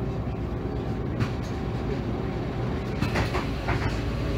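Heuliez GX217 CNG city bus's engine running with a steady low hum, heard from inside the passenger cabin.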